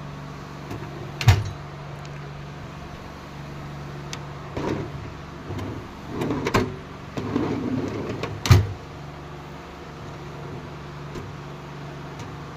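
Tool storage being handled and shut: two sharp knocks, one about a second in and one about two-thirds of the way through, with rummaging and sliding sounds between them, over a steady low hum.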